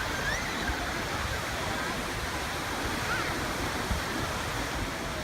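Steady rushing wash of surf and wind at the shore, with a couple of faint brief high calls.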